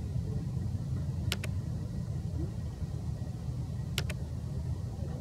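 Two sharp double mouse clicks, about a second in and again about four seconds in, over a steady low rumble.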